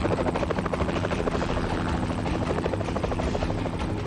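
Small experimental coaxial-rotor helicopter, the Yakovlev 'Shutka', hovering low with its engine and rotors running steadily in a fast, even chatter.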